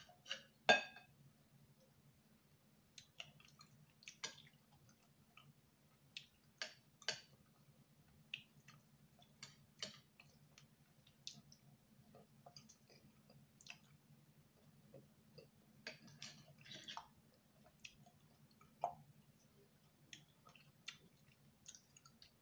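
Close-miked mouth sounds of eating soft oatmeal fufu and soup: scattered wet clicks, smacks and chewing, the loudest about a second in, over a faint steady low hum.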